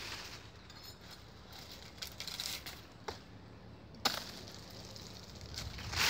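Knife cutting at a date palm's trunk, clearing the old frond bases to ready the tree for toddy tapping. There are a few sharp chops with some crackling of dry plant material, the sharpest chop about four seconds in.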